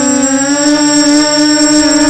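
Motors and 6045 bullnose propellers of an FPV quadcopter whining steadily, heard from its onboard camera; the pitch dips slightly just after the start, then comes back up with the throttle.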